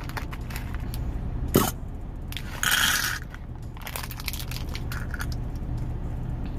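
Metal rhinestone beads clicking and rattling against each other and a clear plastic container as they are handled, with a sharp knock about a second and a half in and a louder rattle just after two and a half seconds. A steady low hum from the idling truck engine runs underneath.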